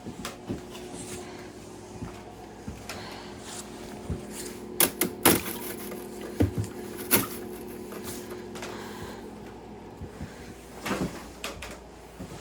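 Scattered clicks and knocks of things being handled and bumped, louder in a cluster about five to seven seconds in and again near eleven seconds, over a faint steady hum.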